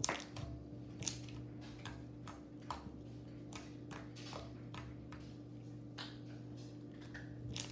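Small glossy slime squished and poked by hand, making irregular clicks and pops, with a steady low hum underneath.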